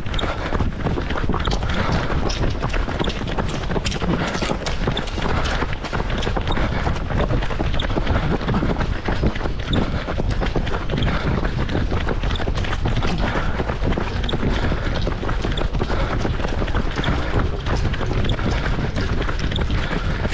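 Wind rushing over the microphone of a camera worn by a runner on the move, with a patter of footfalls on wet asphalt.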